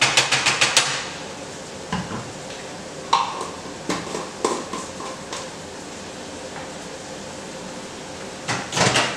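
Kitchen utensil clattering on a frying pan in a quick run of about eight taps, then a few ringing clinks of a spoon against a jar of minced garlic, and a short scraping rattle in the pan near the end.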